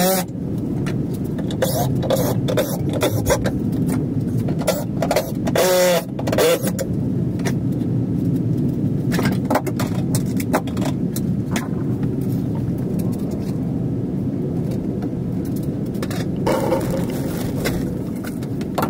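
Steady low rumble under scattered knocks, clicks and scrapes of work on wall framing and insulation batts, with a brief squeaky, wavering sound about six seconds in.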